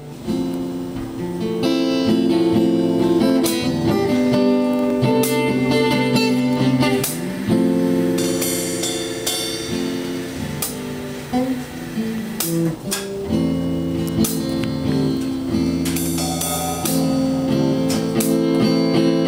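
An acoustic guitar and an electric bass guitar playing a song together, with no singing.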